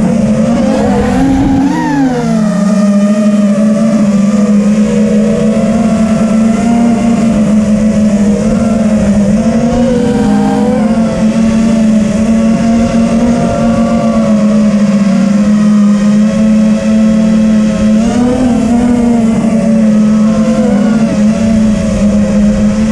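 Brushless motors and propellers of a TBS Vendetta FPV racing quadcopter whining steadily in flight, the pitch dipping and rising briefly with throttle changes a couple of seconds in, again around the middle and once more near the end.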